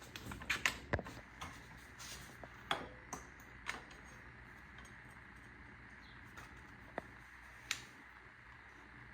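Scattered clicks and light knocks of tools and metal parts being handled during work on a dirt bike's front end, several close together in the first few seconds, then two single clicks near the end, over a low steady hum.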